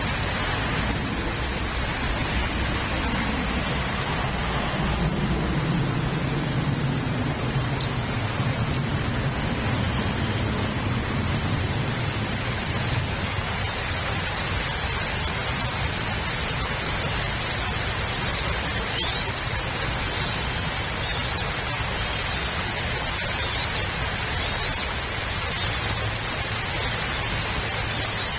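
Steady rain falling, an even hiss that holds throughout. A low rumble swells for several seconds near the start and then fades.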